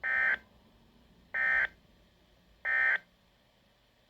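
Three short, identical, buzzing bursts of SAME digital alert data from a Weatheradio Canada broadcast, each about a third of a second long and spaced about a second and a third apart. The bursts are this short, as the end-of-message code that closes an emergency alert would be.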